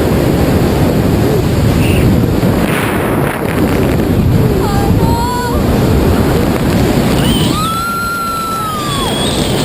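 Wind rushing hard over the microphone. High drawn-out calls rise and fall above it, a short one about five seconds in and a longer one near the end.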